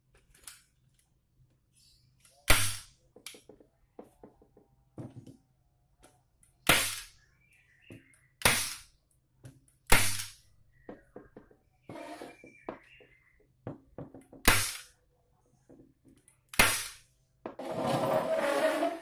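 Sharp knocks, about six loud strikes a second or more apart, each ringing briefly, with fainter ticks between them. Near the end comes a short rasping noise lasting about a second and a half.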